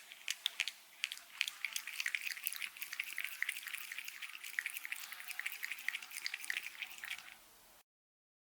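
An animal lapping water, a fast run of light, sharp wet laps and drips, several a second, that stops shortly before the end.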